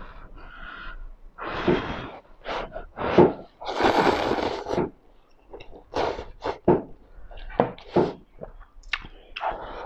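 A person slurping instant noodles: a string of short, noisy sucking slurps, the longest about four seconds in.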